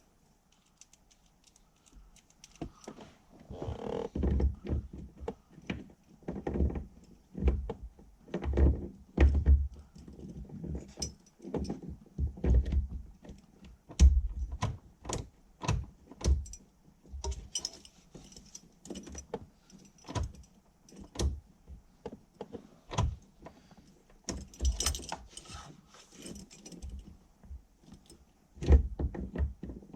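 Hand-work at a car's ignition switch: irregular clicks and knocks of tools and parts being handled, with a ring of keys jangling at times.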